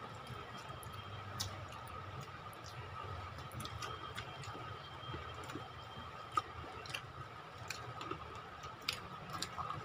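Quiet eating by hand: scattered soft clicks and smacks of chewing and of fingers mixing rice and chicken curry on plates, at irregular moments, over a faint steady high hum.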